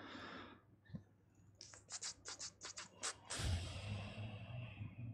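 Handling noise close to the microphone: a single click, then about eight short scratchy strokes in a quick run. About three and a half seconds in comes a longer, louder scratchy rustle with a low thump-like rumble, which fades out.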